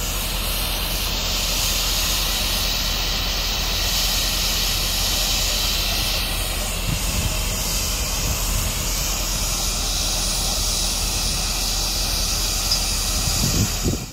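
Steady hiss of steam escaping from a standing Sri Lanka Railways steam locomotive, No. 213, held at an even level throughout and cut off abruptly at the end.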